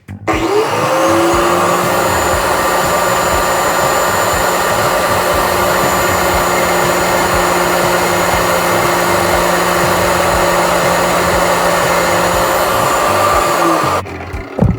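Angle grinder spinning up, running steadily while it cuts through a small piece, then winding down about a second before the end.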